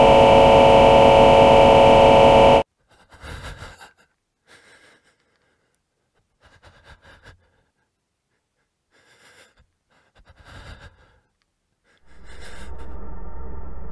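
A loud sustained chord cuts off abruptly about two and a half seconds in. In the silence that follows come five faint, short gasping breaths. About twelve seconds in, a low steady drone swells in.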